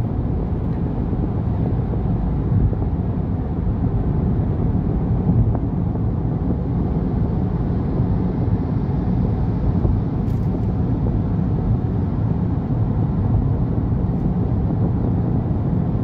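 Steady low road and tyre rumble of a car cruising on a highway, heard from inside the cabin.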